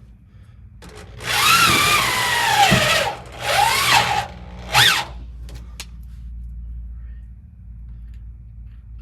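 Power drill run in three bursts into sheet-metal floor-pan patch panels, the first about two seconds long and the last a short blip; its motor pitch sags and swings as it loads up in the metal.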